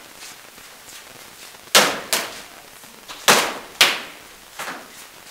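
Sharp, echoing cracks of rattan weapons striking, in a hard-walled hall: two quick pairs of hard blows, about two and three and a half seconds in, then a lighter blow near the end.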